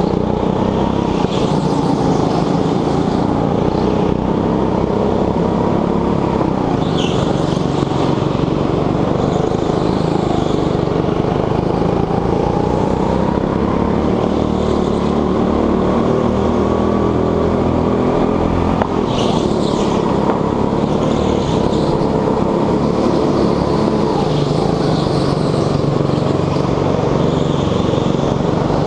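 Petrol go-kart engine running hard, close to the microphone, its pitch rising on the straights and dropping into the corners. Short high squeals a few times, from the tyres sliding on the concrete floor.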